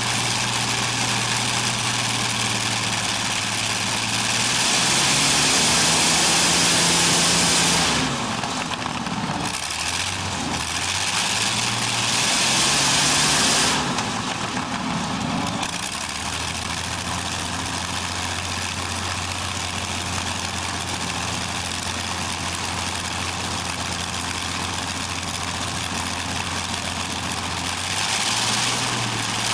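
Continental IV-1430 inverted V-12 aircraft engine running through short open exhaust stacks. It is throttled up twice in the first half, rising in pitch and loudness each time, then settles to a steady lower speed and picks up again near the end.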